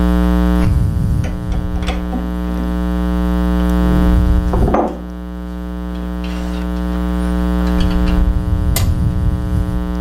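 Steady electrical mains hum with a ladder of overtones, overlaid about a second in, around four seconds in and near the end by low knocks and rumbles of metal lathe parts being handled as the tailstock and tool rest are set.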